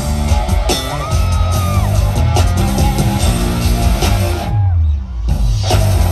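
Loud live concert music through a festival sound system, heavy on the bass; it drops out for about a second near the end and starts again.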